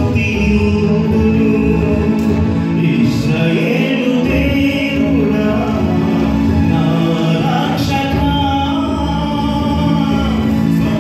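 A man singing a Telugu Christian song into a microphone, over sustained keyboard chords and tabla.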